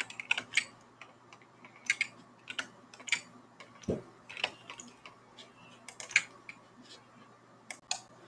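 Scattered, irregular clicks of a computer keyboard, a dozen or so sharp taps a fraction of a second to a second apart, with one duller knock about four seconds in.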